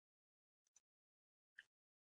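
Near silence, with two very faint short clicks about a second apart.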